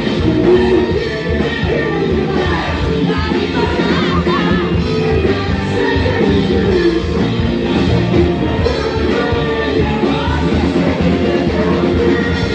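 Live band music with a woman singing into a microphone, loud through the venue's sound system.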